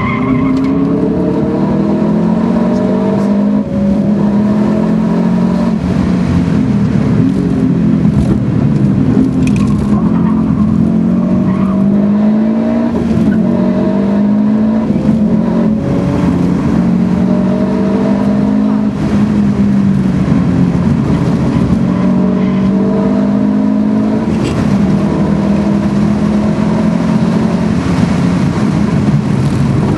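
Subaru Impreza STI's turbocharged 2.5-litre flat-four with a Milltek exhaust, heard from inside the cabin while being driven hard. The engine note climbs in pitch and drops back over and over as the car accelerates, shifts and lifts for corners.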